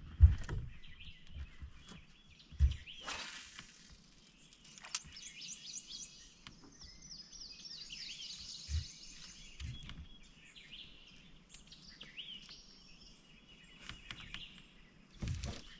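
Songbirds chirping and singing in quick runs of high, falling notes, with a few short low thumps.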